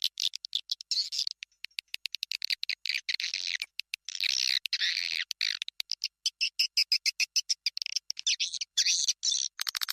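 Recorded swiftlet calls played as a swiftlet-house lure sound: rapid, dense chirping and twittering with fast clicking pulses, high-pitched.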